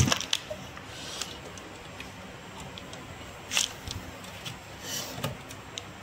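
Hard drive carriers clicking into the front drive bays of an HP rack server as they are pushed home and latched. A sharp snap comes at the start, then a few lighter clicks, one near the middle and a small cluster near the end.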